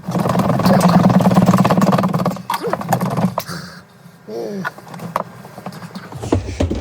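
Loud, rapid mechanical rattling for the first couple of seconds, then quieter clattering with a few short squeaks, and a lower rhythmic mechanical sound starting near the end.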